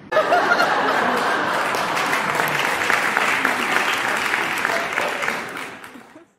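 Audience applause, dense and crackling, starting abruptly and fading out over the last second.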